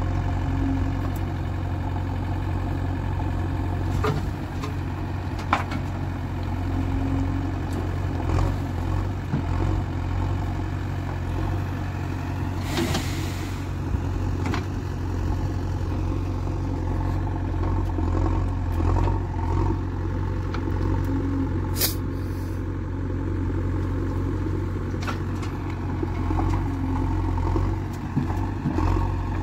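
JCB 3DX backhoe loader's diesel engine running steadily while the backhoe digs and dumps soil into a tractor trolley, with a few scattered knocks, a brief hiss about thirteen seconds in, and a sharp click later on.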